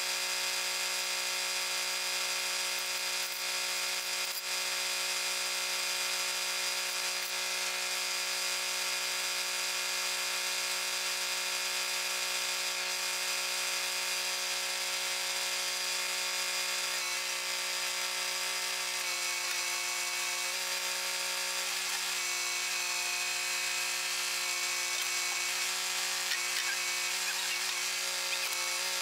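Kubota compact tractor's diesel engine running steadily at a constant speed, with a single knock about four seconds in.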